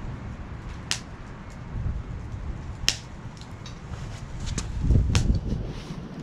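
Two sharp clicks or clinks, about one and three seconds in, with a few fainter ones later, over low wind rumble on the microphone that swells for about a second near the five-second mark.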